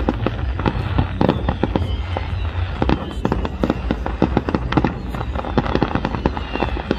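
Aerial fireworks display: a rapid, continuous barrage of shell bursts and crackling bangs, several a second, with faint falling whistles.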